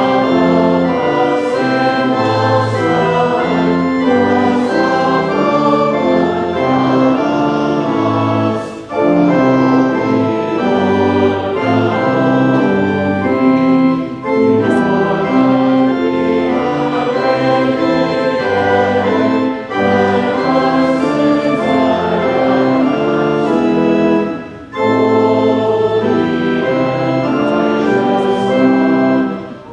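Congregation singing a hymn with pipe organ accompaniment, line by line, with short pauses between lines about every five seconds.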